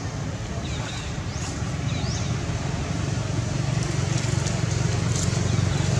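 A steady low rumble like a nearby engine running, growing slightly louder, with a few faint short high chirps over it.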